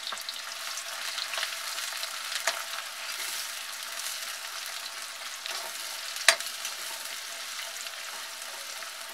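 Sliced onions sizzling in hot ghee in a metal kadhai, stirred with a metal spatula that scrapes and clicks against the pan. A sharp clack stands out about six seconds in.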